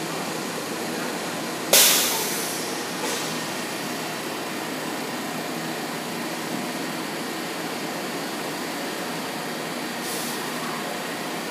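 R142A New York City Subway train running with a steady mechanical noise. A sharp hiss of air comes about two seconds in and dies away over a second, and a fainter hiss comes near the end.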